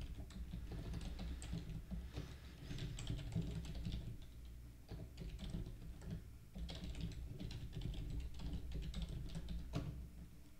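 Typing on a computer keyboard: a run of quick key clicks that pauses for about two seconds midway, over a faint low hum.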